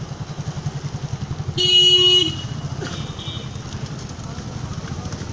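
A vehicle horn honks once, a single steady tone lasting under a second, about a second and a half in. Under it the engine of an idling motor vehicle runs with a steady, pulsing low rumble.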